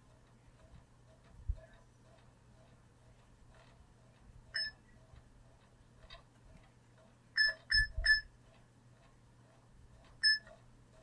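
Short electronic beeps from a phone being tapped: one, then three in quick succession, then one more. Under them is a faint, even ticking, with a soft thump about a second and a half in.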